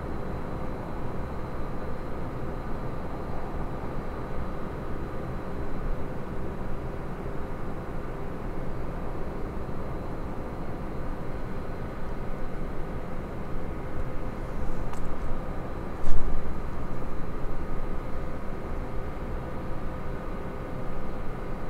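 Distant low rumble of a SpaceX Falcon Heavy rocket in flight, a steady noisy rumble heard from tens of kilometres away. A sharp knock sounds about sixteen seconds in.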